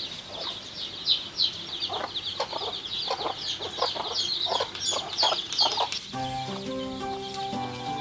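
Chickens clucking over a dense, steady high chirping. About six seconds in, background music with a simple stepped melody comes in and the clucking stops.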